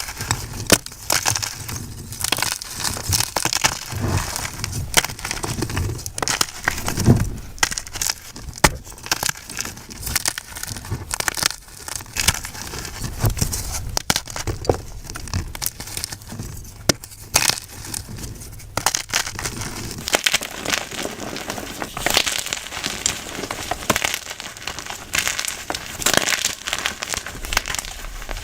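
Blocks of white gym chalk being crushed and crumbled, a dense run of crisp, crunchy crackles and snaps with no steady rhythm.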